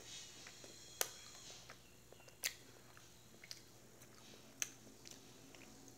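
Faint chewing of a sour Skittles candy, with a few sharp clicks spread irregularly through it.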